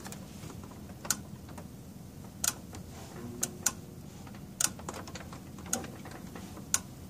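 Sharp clicking from inside a Viewsonic 17-inch CRT monitor, about seven clicks at uneven spacing, roughly one a second, over a faint hum. The owner takes it for a bad connection inside that upsets the power, auto-ranging or refresh-rate switching, so the monitor shows no picture.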